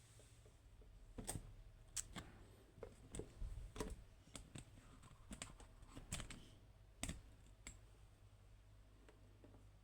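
A string of small, irregular clicks and taps of metal and plastic being handled: a lock and lockpicking tools being moved about and set down.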